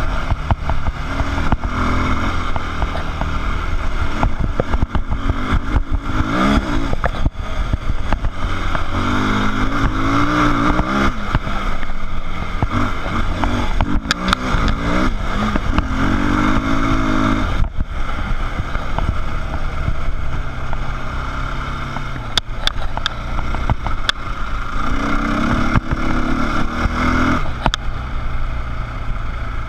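Dirt bike engine under way on a dirt trail, its pitch climbing and dropping several times as the rider opens and closes the throttle.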